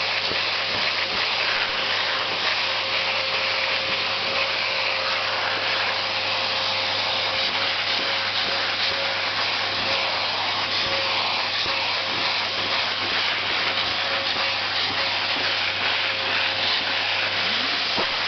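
Vacuum cleaner running steadily: an even rushing noise with a faint steady whine.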